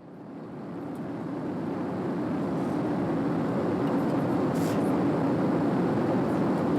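Steady cabin noise of an Airbus A321 airliner in flight: a low, even rush of airflow and engines. It fades in over the first couple of seconds, then holds steady.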